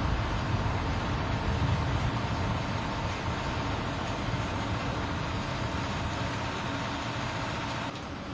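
Steady running noise of heavy engines with a faint steady whine, dropping off at a cut near the end.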